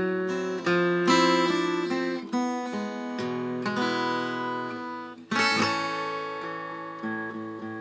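Acoustic guitar playing chords, each one struck and left to ring out, without singing.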